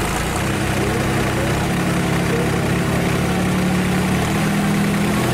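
Diesel engines of a John Deere 5310 and a Ford 3600 tractor running at a steady speed, their note strengthening a little after about two seconds.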